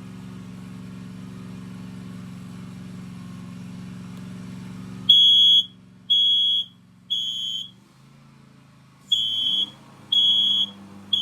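First Alert SA520 hardwired smoke alarm sounding, its raspy piezo horn giving the temporal-three pattern: three half-second high-pitched beeps, a pause, then three more, starting about five seconds in. Before the beeps there is a steady low hum.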